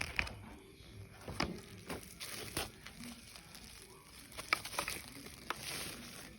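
Plastic packaging crinkling and rustling as it is handled, with several sharp clicks and taps scattered through.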